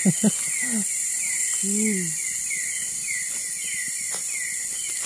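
Night forest insect chorus: a steady high-pitched buzz with a short falling chirp repeating a little more than twice a second. A few brief murmured voice sounds come in the first two seconds.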